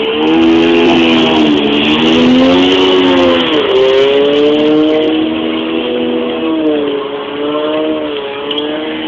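Two-stroke 440 race jet ski engines running at high revs, their pitch rising and falling as the throttle and load change. The sound grows somewhat fainter over the last few seconds.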